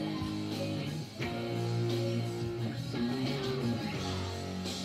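Squier electric guitar playing strummed chords that ring on, with a brief drop in level about a second in before the next chord.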